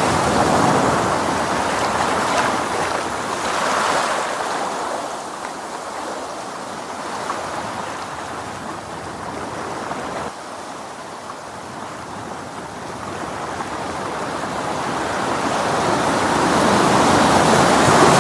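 Ocean surf washing in: a steady hiss of waves that is loud at first, fades to its lowest about two-thirds of the way through, then swells again toward the end.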